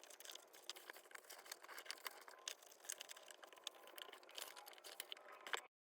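Faint rustling and light irregular ticks of glossy magazine pages and covers being handled. The sound cuts off suddenly near the end.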